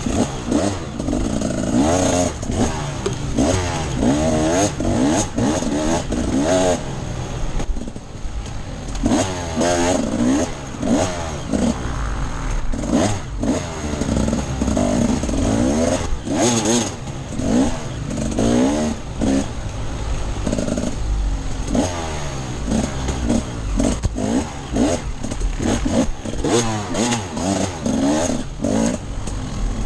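Off-road dirt bike engine revving up and down again and again, the pitch rising and falling every second or so as the throttle is opened and shut.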